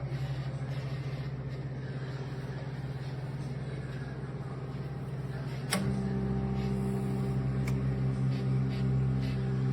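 Commercial Chef 0.7 cu ft microwave running with a steady hum. A sharp click comes a little past halfway, after which the hum gets louder with an added higher buzz, and a fainter click follows soon after.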